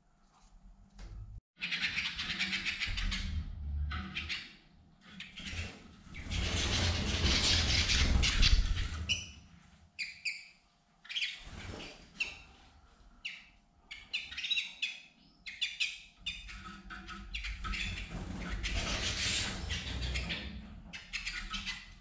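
Canaries in a flight cage giving short chirps and calls. Several long stretches of loud rustling noise break in between them, the loudest a few seconds in.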